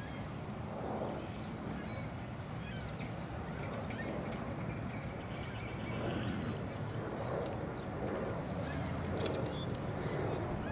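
Steady low rumble of city traffic, with a couple of short, falling bird chirps above it.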